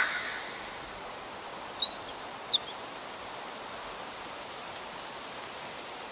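A songbird gives a short phrase of quick, high chirps about two seconds in, over a steady outdoor hiss. A louder bird call is just fading out at the very start.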